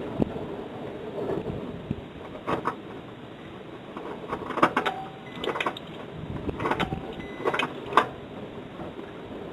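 Honda del Sol's electric fuel pump switched on during a fuel-pressure test, pushing fuel out of the opened line at the fuel filter, over a steady noise. Several sharp clicks and knocks come in the second half, the loudest near the end.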